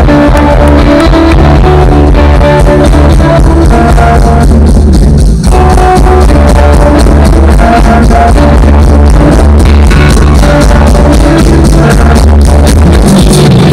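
A rock band playing live on an outdoor stage: electric guitars, bass and drums, loud and dense, with a momentary break about five seconds in.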